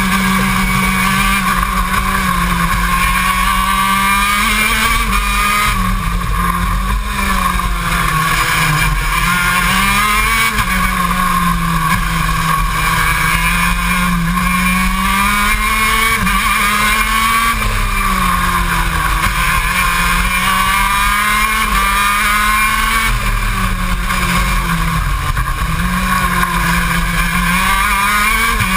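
KZ2 shifter kart's 125 cc two-stroke engine at racing speed, heard onboard, running loud throughout, its pitch climbing and falling again and again as the kart accelerates down the straights and slows for corners.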